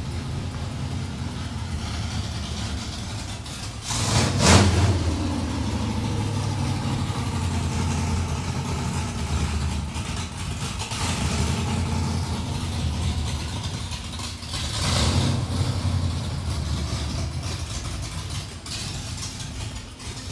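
A car engine idling with a steady low hum, revved up twice: briefly about four seconds in and again around fifteen seconds in.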